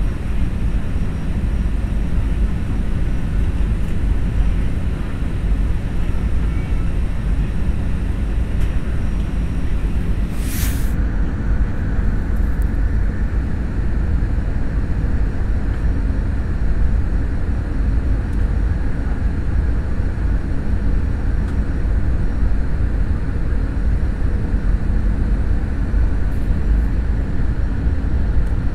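Steady low rumble of a jet airliner's engines and airflow heard inside the passenger cabin of an Airbus A320, with a brief high hiss about ten and a half seconds in.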